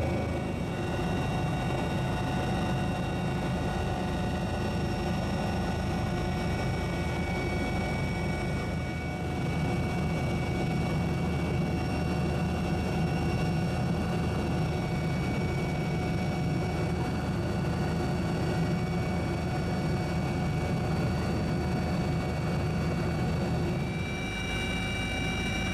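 Steady helicopter engine and rotor noise heard from on board, with a constant high whine over a low drone.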